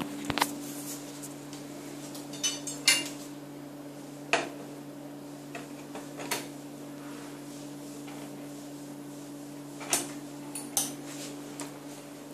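Scattered knocks and clicks of the high chair's plastic and metal parts being handled and fitted together, over a steady low hum.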